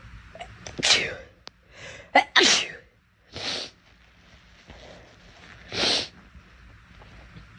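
A girl sneezing several times in a row, short sharp blasts with the loudest about a second in, around two and a half seconds in, and near six seconds in.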